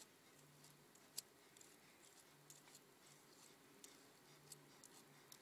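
Near silence, with faint scattered soft clicks and scratches of a grooming comb drawn through a St. Bernard's thick coat; one sharper click comes a little over a second in.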